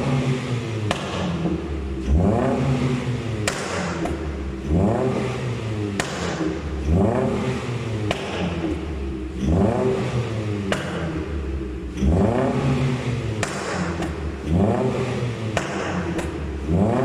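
Proton Inspira's 1.8-litre 4B10 four-cylinder engine revved in quick blips, rising and falling about every two to two and a half seconds. Sharp pops come from the valved exhaust as the revs drop: the overrun pops and crackles of a pops-and-crackles ECU remap.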